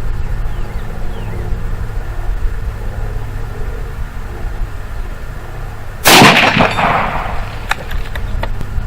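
A single rifle shot about six seconds in from a Ruger American rifle chambered in 5.56, firing a .223 round, with a ringing tail that dies away over about a second. A few light clicks follow, over a steady low hum.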